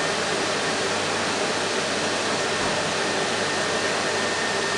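Vacuum cleaner motor running steadily, a constant rushing air noise with a faint high whine.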